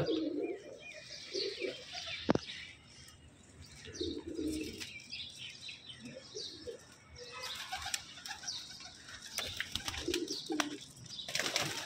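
Domestic pigeons in a loft cooing in short low murmurs every few seconds, with wings flapping now and then and higher chirps from other birds.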